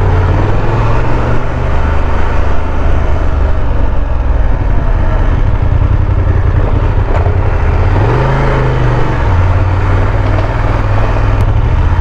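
BMW F 850 GS parallel-twin engine running at low road speed, with a steady rush of wind and road noise over it. About eight seconds in, the engine pitch briefly rises and falls.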